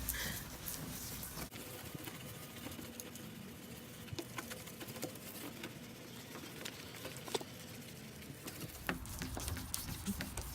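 Toothbrush scrubbing toothpaste on a car headlight lens: a faint, steady scratchy brushing with many small irregular ticks.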